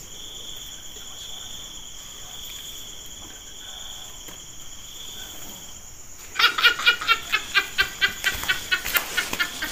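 A steady, high-pitched insect trill. About six seconds in, a louder run of quick repeated pitched pulses begins, about four a second.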